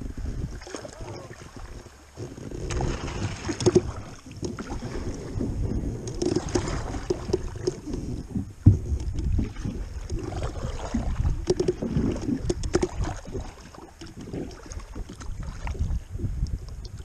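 Kayak moving on a river: water sloshing and splashing against the hull in uneven swells, over a low rumble of wind on the microphone. A few sharp knocks on the boat, the loudest a little past halfway.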